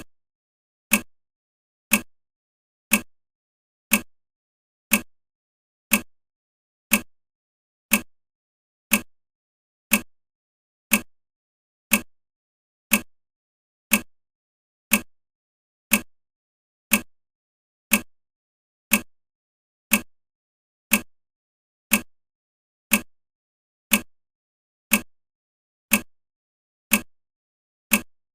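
Countdown timer ticking once a second: an even, sharp clock-like tick on each second.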